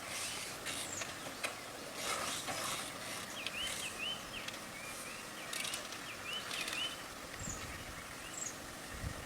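A bird calling a quick run of short hooked chirps, over outdoor background noise with a few hissing bursts early on and a low rumble near the end.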